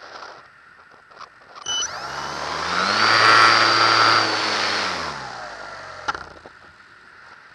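Model plane's nose-mounted motor and propeller spinning up sharply about two seconds in, running with a high whine, then winding down and falling in pitch to a stop; a single sharp click comes as it stops.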